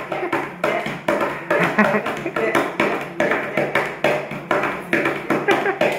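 Hands beating a steady rhythm on a wooden school desk top, about two to three strikes a second, playing the beat of a Surinamese poko drum.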